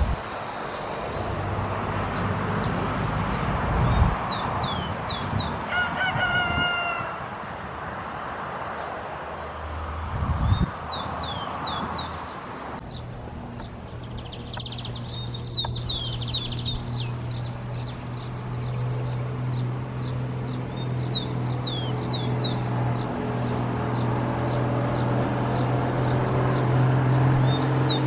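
Rufous-collared sparrow (tico-tico) singing: short phrases of a few high, down-slurred whistles, repeated several times. A rooster crows once about six seconds in, and a steady low hum runs under the second half.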